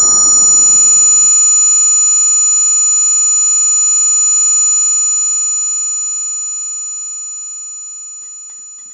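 Loud, steady high-pitched ringing of several held tones, the ear-ringing (tinnitus) effect left after a gunshot; the dying rumble of the shot fades out about a second in, and the ringing then slowly fades over the second half.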